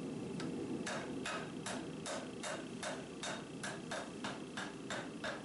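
Steady blacksmith's hand-hammer blows, about two to three a second, on a red-hot piece of farrier's rasp steel lying on the anvil. The steel is being forged out into a flared U-shape.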